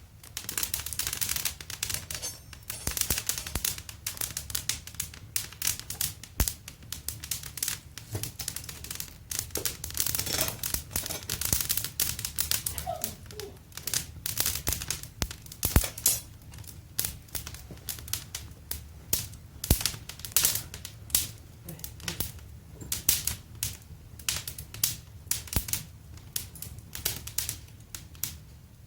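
Fire crackling in a wood-burning fireplace: a dense, irregular run of small snaps with frequent sharper pops.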